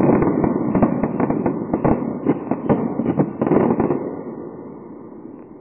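Fireworks finale: a rapid volley of shell bursts and sharp reports over a lingering rumble, thinning out and dying away in the last second or two as the barrage ends.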